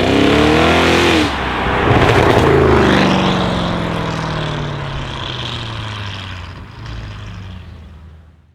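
Audi RS6 C7's twin-turbo V8 with a decatted Milltek exhaust accelerating hard, its note climbing, dipping briefly about a second in at a gear change, then climbing again. From about three seconds in the note falls in pitch and fades steadily as the car moves away.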